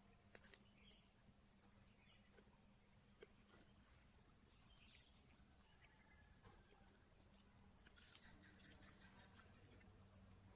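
Near silence: a steady high-pitched trill, with a few faint clicks as small metal parts and hand tools are handled.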